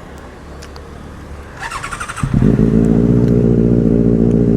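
Benelli 600i inline-four motorcycle engine with an aftermarket silencer: a low hum at first, then about two seconds in the engine comes up suddenly loud and holds a steady, even note.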